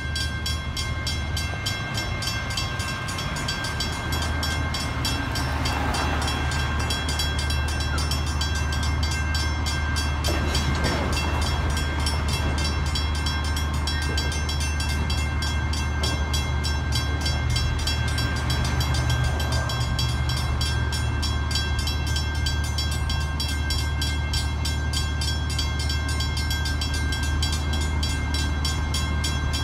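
Boxcars of a California Northern freight train being shoved slowly through a grade crossing, a steady low rumble, with the crossing signal's warning bell ringing over it in an even, repeating pattern.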